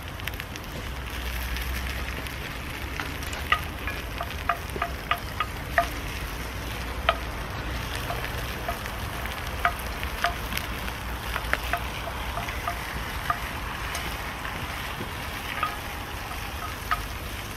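Ground beef and onions frying in a cast-iron Dutch oven, a steady sizzle while a wooden spatula stirs and breaks up the meat. Scattered sharp clicks and pops run all through.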